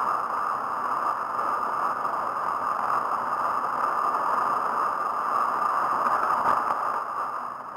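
Steady rush of wind and tyre noise on a camera mounted on a handbike rolling fast over asphalt, easing a little near the end.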